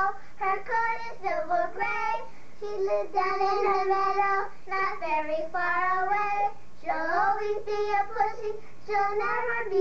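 Two young girls singing a song together, unaccompanied, in phrases with long drawn-out notes.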